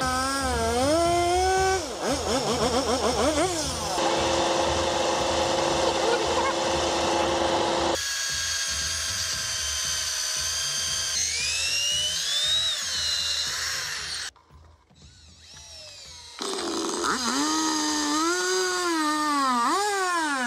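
Power tools in short successive clips: a chainsaw revving as it cuts into a log, a drill boring into wood with an auger bit, and a cordless drill whose whine rises and falls with the trigger as it drives a fastener. The sound changes abruptly between clips, with a brief near-silent gap about three quarters of the way through.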